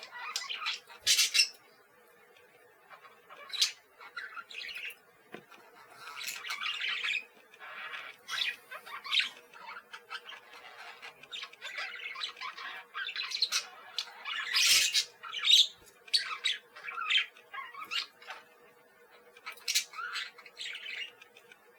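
Parakeet calling in a run of short, harsh squawks and chirps at irregular intervals, with brief pauses between bursts; the loudest calls come about a second in and again about two-thirds of the way through.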